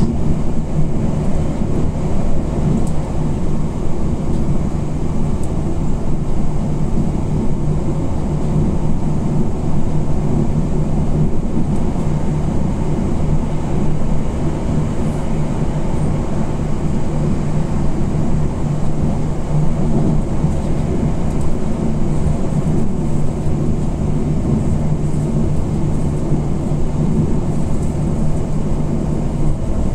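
Electric limited-express train running at speed, heard from inside the passenger car: a steady rumble of wheels on the rails with a constant low hum.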